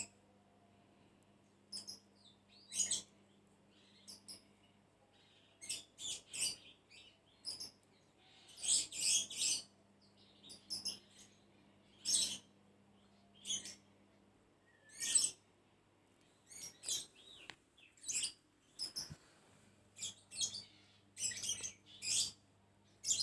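Small birds chirping in short, irregular bursts over a faint steady low hum.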